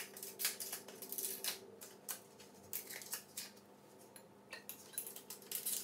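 Plastic ice cube tray being twisted by hand, the ice cubes cracking and snapping loose in a run of irregular sharp crackles and clicks.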